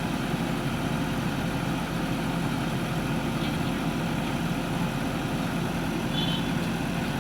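Heavy diesel engine of construction machinery idling steadily, with a brief faint high tone about six seconds in.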